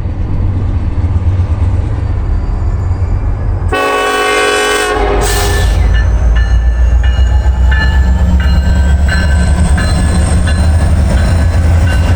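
Norfolk Southern intermodal train's locomotive horn sounding one loud blast of about two seconds, about four seconds in, over the steady low rumble of the passing train. After the blast, the wheels click rhythmically over the rail joints.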